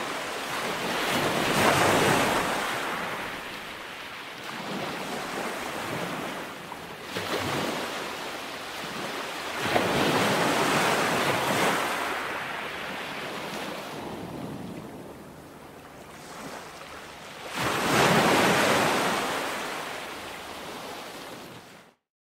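Ocean surf breaking on the shore in three slow surges, each swelling up and fading away about eight seconds apart, with wind rumbling on the microphone.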